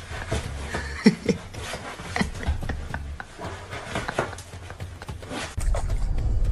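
A small fluffy pet's claws scratching and scrabbling on fabric as it clings to and climbs along a sofa, with a few short squeaks about a second in. About five and a half seconds in, this gives way to water splashing.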